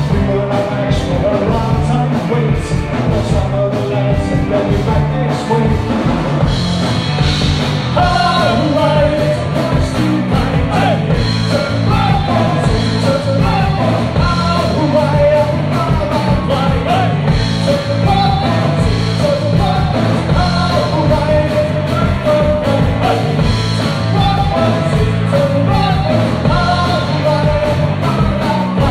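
Live rock band playing: two electric guitars, bass guitar and a drum kit, with a lead vocal sung over them.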